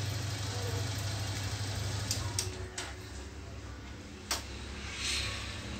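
Steady low mechanical hum, with a few sharp clicks in the middle.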